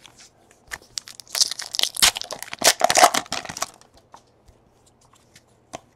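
Hands handling 2017 Donruss baseball cards and their packaging: a burst of crinkling and tearing from about one and a half to three and a half seconds in, with light clicks of cards being handled before and after.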